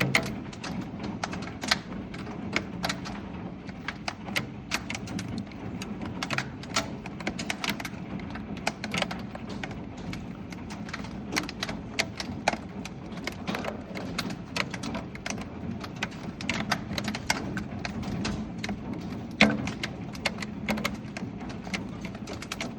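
Marble-sized hail falling: many irregular hard clicks and knocks of hailstones striking surfaces over a steady hiss, with one louder knock about three quarters of the way through.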